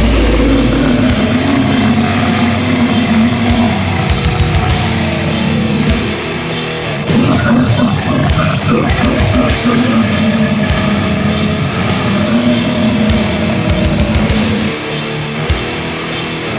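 Heavy metal music with distorted guitars and a pounding drum kit, kicking in abruptly after three short hits.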